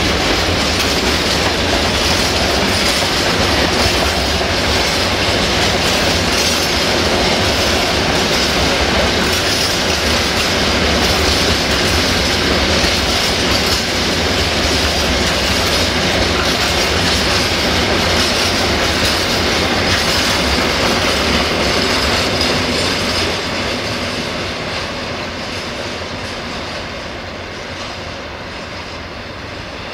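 Freight train of bogie tank wagons rolling past, wheels clattering over the rail joints. The noise fades over the last several seconds as the end of the train draws away.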